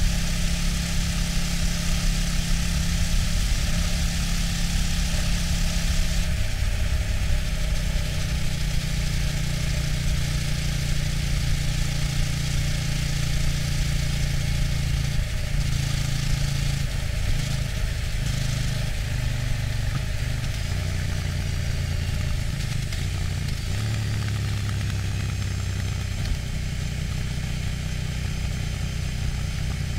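KTM 790 Duke's LC8c parallel-twin engine running through its stock exhaust at cruising speed, with wind and road noise over it. The engine pitch holds steady at first, then shifts a few times and settles lower in the second half.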